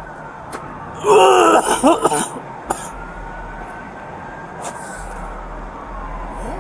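A man groans loudly in pain for just over a second, about a second in, with a few short sharp noises after it. A siren wails faintly and slowly rises and falls throughout.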